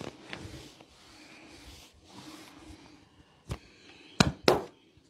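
Hand strikes of a percussive shoulder massage: a single slap, then two louder slaps in quick succession near the end.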